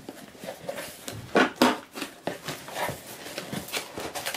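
Cardboard box flaps and a cardboard insert being pulled open and handled, with irregular scrapes and rustles; the loudest scrape comes about one and a half seconds in.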